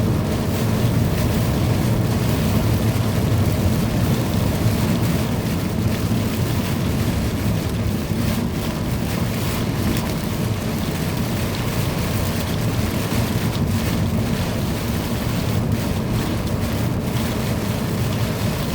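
Heavy thunderstorm downpour and gusting wind, a steady dense rush with wind buffeting the microphone.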